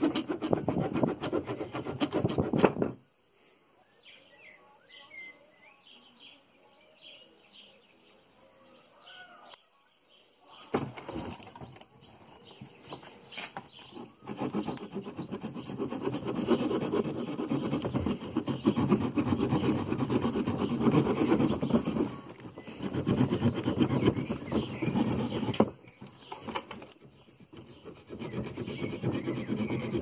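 Multitool saw blades, first a Leatherman Super Tool's and then a Ganzo G302-H's, sawing back and forth through a thin bark-covered branch. The sawing stops about three seconds in, leaving a gap of several seconds with faint birdsong. It then resumes and runs on with a couple of short pauses.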